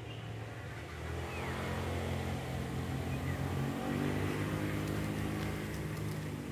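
A motor vehicle's engine running with a steady low hum, growing louder about a second in and easing off near the end.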